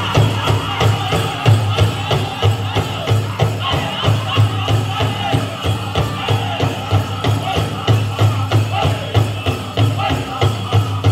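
Powwow drum group singing a chicken dance song over a fast, steady beat on a big powwow drum, with the dancers' leg bells jingling along.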